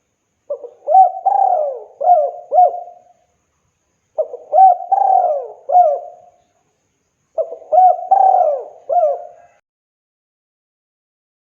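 Spotted dove (tekukur) singing its cooing song: three phrases a couple of seconds apart, each a quick run of hooked, rising-and-falling coos.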